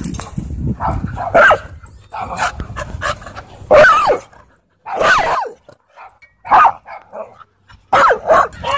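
Dogs barking in rough play, about seven loud barks spaced irregularly roughly a second apart, some sliding down in pitch.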